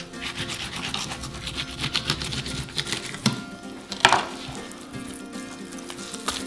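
Kitchen knife scraping and slicing a fish fillet away from its skin: a run of short rasping strokes, with a sharp knock of the blade on the board about four seconds in.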